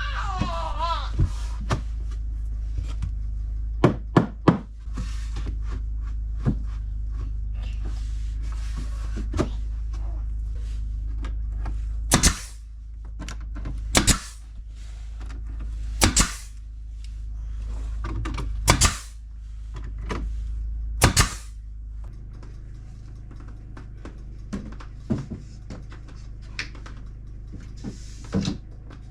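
Nails being driven into tongue-and-groove wood boards: sharp single strikes, five loud ones about two seconds apart in the middle, among lighter knocks and handling of the wood. A steady low hum runs underneath and stops about two-thirds of the way through.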